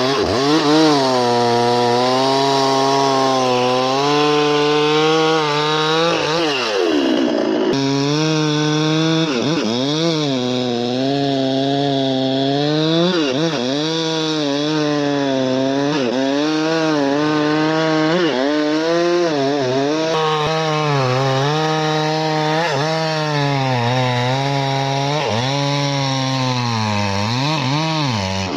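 Husqvarna two-stroke chainsaw running at high revs while cutting into wood; the engine note sags and climbs back again and again as the chain bites and the load comes on and off. The sound jumps abruptly about eight seconds in.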